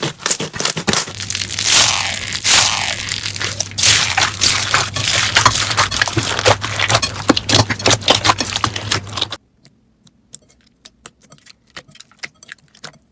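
Slime being squeezed and worked by hand, giving dense crackling and popping clicks. About nine seconds in the sound cuts off suddenly to a much quieter clip with only sparse clicks.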